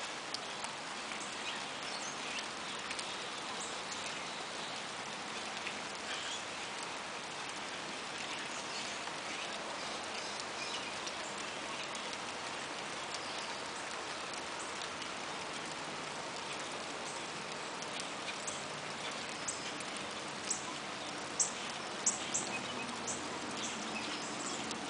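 Steady rain falling on a swollen creek and the plants on its bank, an even hiss with scattered sharp ticks, a quick run of them near the end.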